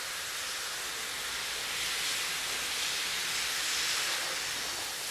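Steam locomotive letting off steam: a steady hiss that swells a little in the middle and eases off again.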